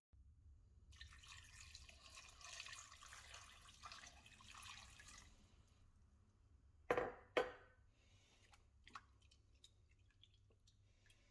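Water poured from a jug into a stainless-steel pot of frozen cassava chips for a few seconds, followed about two seconds later by two sharp ringing knocks half a second apart, then faint small splashes and clicks as a hand presses the chips under the water.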